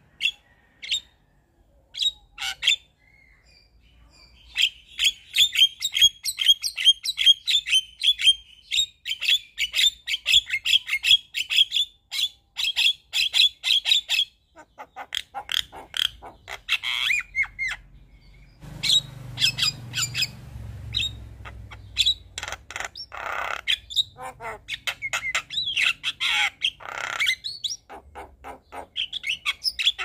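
Javan myna (jalak kebo) singing: a few sharp calls, then a fast run of rapidly repeated high chirps for about ten seconds, then a medley of loud, harsh squawks and whistled notes.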